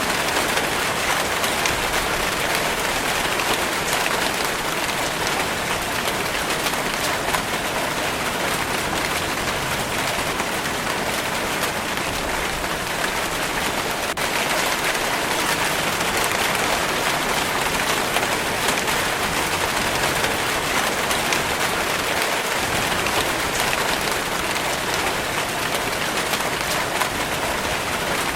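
Steady rainfall, a dense even hiss with fine patter of drops on a surface.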